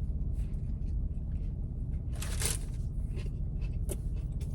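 Eating a chicken sandwich: rustling of the paper wrapper and chewing in short irregular strokes, with a louder crinkle about two seconds in. A steady low rumble runs underneath.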